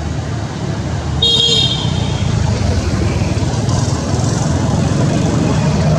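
Motorbike and scooter traffic passing on the road, engines running steadily, getting louder about a second in, when a short high-pitched horn toot sounds.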